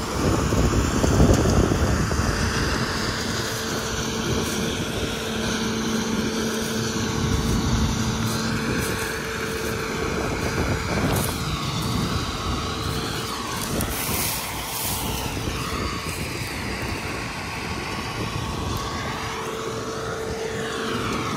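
Tractor-drawn peanut harvester running steadily: a continuous machine and engine noise, with a sweeping rise and fall of pitch a few times in the second half.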